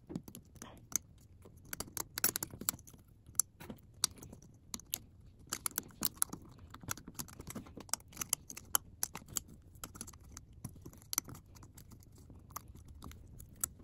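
Irregular small clicks and taps of fingers handling a Samsung Galaxy Fold 3's internal parts: small covers and connectors being lifted off and set down.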